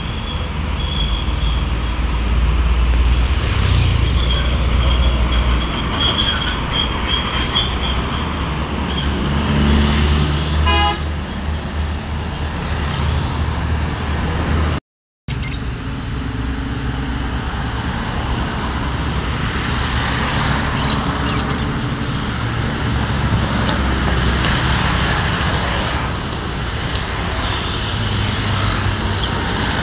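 Heavy road traffic. A bus engine rumbles as it pulls away, and a vehicle horn sounds briefly about eleven seconds in, followed by steady noise of passing cars and trucks.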